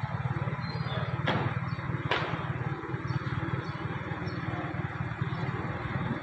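Small engine running steadily close by, a low, evenly pulsing drone, with two sharp knocks about one and two seconds in.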